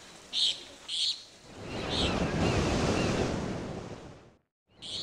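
Birds chirping a few short calls, then an ocean wave washing in that swells over about a second and fades over the next two. The sound drops out entirely for a moment near the end before the chirps return.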